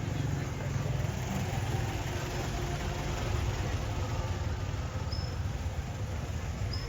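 Street ambience dominated by a steady low rumble of a motor vehicle engine, with two short high chirps near the end.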